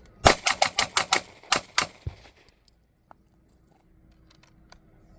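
Pistol fired eight times: a fast string of six shots about a sixth of a second apart, then a short pause and two more shots. This is the Bill drill on the first target, followed by the transition to a second target.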